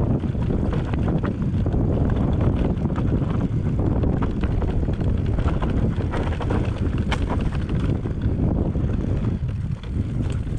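Heavy wind buffeting on the microphone during a rough trail ride, with many short clicks and knocks from the ride over stony ground.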